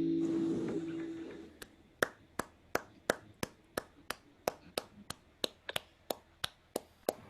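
A recorded piece of music ends, its held chord fading out within the first second, followed by a steady run of sharp, evenly spaced clicks, about three a second, that stop just before the end.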